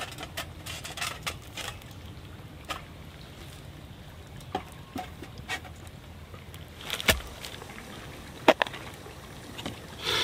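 Small split-wood fire crackling and popping in a folding steel camp grill, with clinks and knocks of a stainless grill grate, a kettle and camp dishes being handled; two louder knocks come in the second half.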